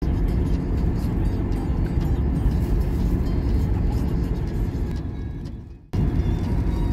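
Car interior noise while driving at motorway speed: steady road and engine rumble. It fades away about five seconds in, then cuts back in abruptly.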